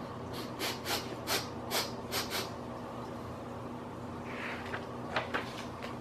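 A quick run of about eight short sniffs, acting out the flea's runny nose. A soft paper rustle and a couple of light clicks follow as a picture-book page is turned.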